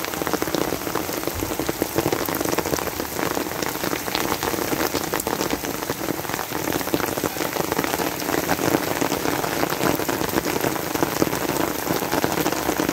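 Steady rain falling, a continuous hiss with a dense patter of individual drops.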